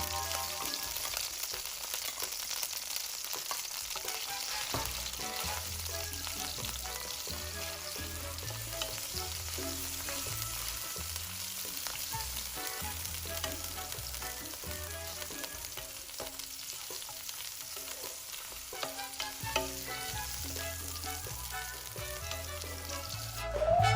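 Food sizzling and frying in a hot pan while it is stirred, with a few sharp clicks along the way. Faint background music plays underneath.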